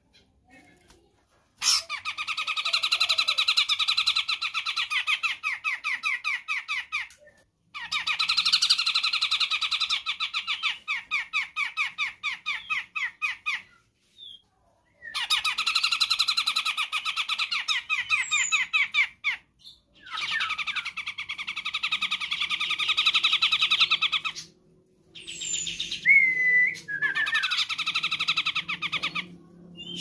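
A cucak jenggot (grey-cheeked bulbul type) singing five long bouts of fast, chattering, rapidly repeated notes, with short pauses between bouts. A few separate upslurred whistles come near the end.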